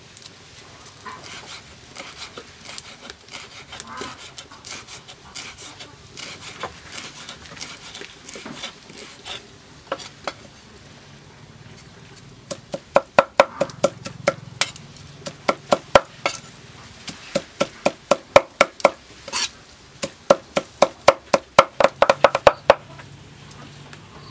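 Meat cleaver chopping on a thick round wooden chopping block. Light, quick cuts come first, then from about halfway a run of loud, steady chopping blows, about three a second, as chillies and boiled offal are minced together.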